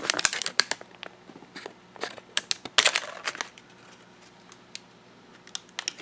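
Clear plastic clamshell package of laptop memory modules being pried open: a quick run of plastic crackles and clicks in the first second, another cluster about halfway through, then fainter handling.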